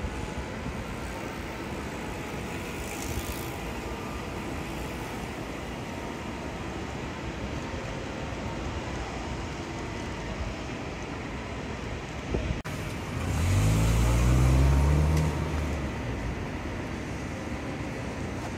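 Steady engine rumble of heavy construction trucks working. About two-thirds of the way in, one engine grows louder and its pitch falls over a few seconds.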